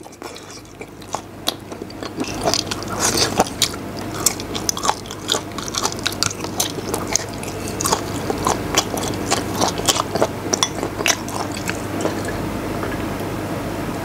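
A man chewing a mouthful of pig's head meat close to a clip-on microphone, with many short wet clicks of mouth and teeth.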